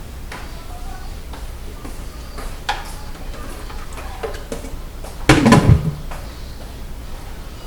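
Dishes and utensils being handled, giving scattered light clicks and knocks, with one loud low thump about five seconds in, over a steady low rumble.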